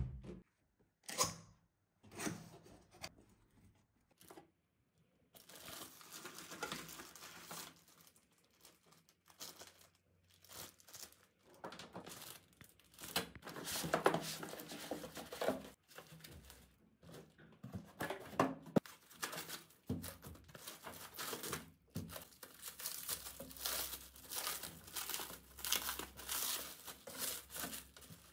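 Plastic film being handled, crinkling and tearing irregularly. A few sharp clicks come in the first few seconds, then near-continuous rustling from about five seconds in.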